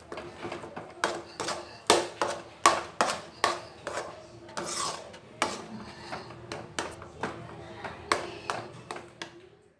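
Metal spoon stirring a thick, sticky cornflour halwa mixture in a metal pan, scraping and knocking against the pan about two or three times a second in an uneven rhythm.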